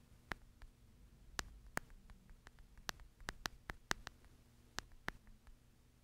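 A run of light, sharp clicks at an uneven pace, about fifteen in five seconds, over a faint steady hum.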